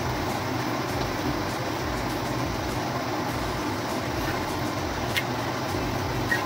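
Steady whooshing kitchen background noise, with two light metallic clicks about five and six seconds in as a steel spatula touches the iron tawa.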